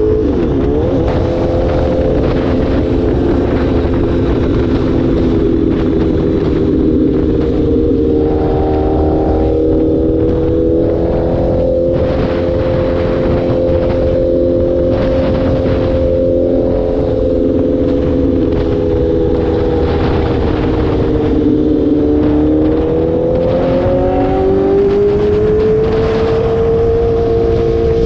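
Sport motorcycle engine running steadily at highway speed, with wind rushing over the microphone. About three-quarters of the way through the engine pitch dips, then climbs again as the bike accelerates.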